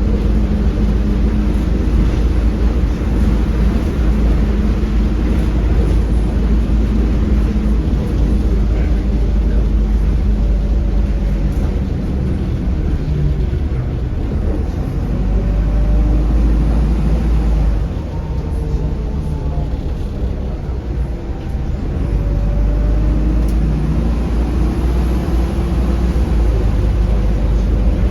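Optare Solo M900 single-deck bus under way, heard from on board: a steady low engine and road rumble, the engine note rising and falling as the bus changes speed, with a quieter stretch about two-thirds of the way through and a few light rattles.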